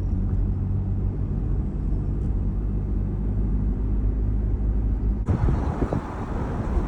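Car cabin road noise: a steady low engine and tyre rumble with a hum. About five seconds in it switches suddenly to a rougher, gusting noise, like wind buffeting the microphone.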